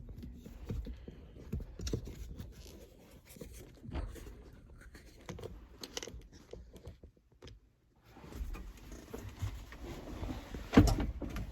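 Scattered light knocks, scrapes and rustling as the tractor cab's floor cover is handled and put back in place, with one sharper knock near the end.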